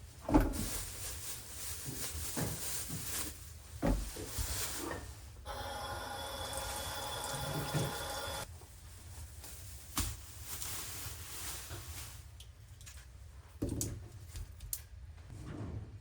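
Water running from a tap for about three seconds in the middle, with several sharp knocks and clatters of kitchenware.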